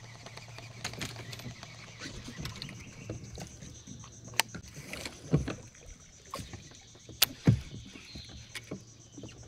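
Small boat on the river: scattered sharp clicks and dull knocks against the hull, with light water sounds, over a faint steady low hum.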